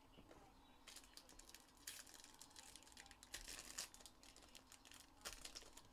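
Faint, irregular crinkling and tearing of foil trading-card pack wrappers as the packs are handled and opened, loudest around two and three and a half seconds in.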